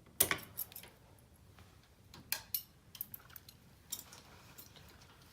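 Irregular light clicks and taps of hands working with doorbell wire and small metal tools, the loudest just after the start.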